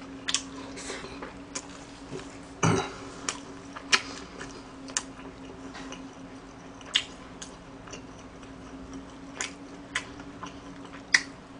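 Close-miked eating: chewing and chopsticks tapping on dishes, heard as scattered sharp clicks and small smacks about once a second, over a faint steady hum.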